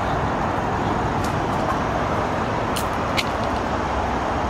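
Steady rushing outdoor noise, with two faint clicks a little after the middle.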